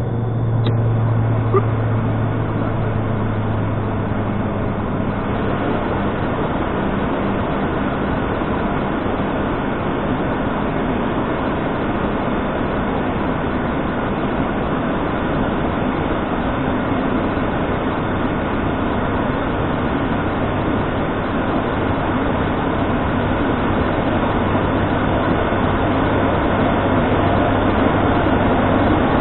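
ATR 72 turboprop heard from inside the cockpit in the climb: a steady low propeller drone over a constant rush of engine and airflow noise.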